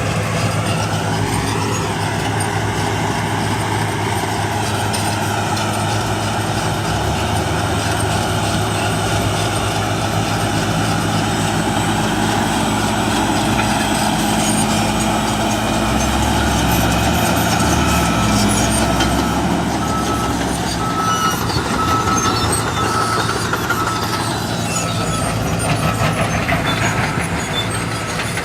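Heavy diesel engine of a large earthmoving machine running steadily under load, its pitch shifting a little past the middle. A faint, evenly repeating high beep, like a reversing alarm, joins in the last third.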